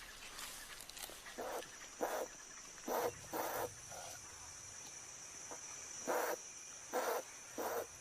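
Chimpanzees calling in short, repeated hoots, coming in clusters about a second apart, over a steady high insect drone.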